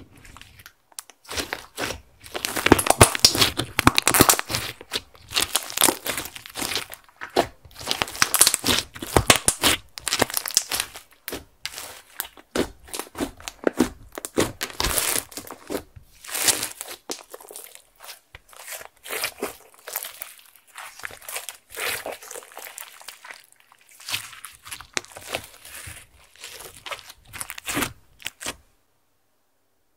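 Hands kneading, pressing and stretching glittery slime made from clear slime with makeup and glitter mixed in: waves of sticky crackling and popping clicks as the slime is squeezed and pulled apart. The sound stops abruptly shortly before the end.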